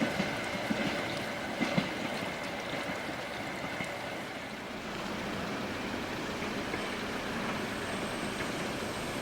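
Harz narrow-gauge train running on the track: a few wheel knocks on the rails in the first two seconds, then a steady rushing rumble.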